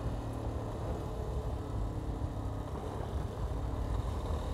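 Yamaha Ténéré 250's single-cylinder engine running steadily as the bike rides along a dirt road, with a low rumble of wind on the handlebar-mounted microphone.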